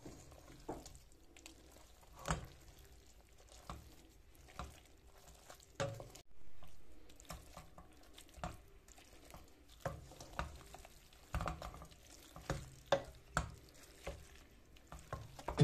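Wooden spoon stirring and tossing spaghetti in tomato sauce in a stainless steel pot, with irregular knocks and scrapes of the spoon against the pot's sides.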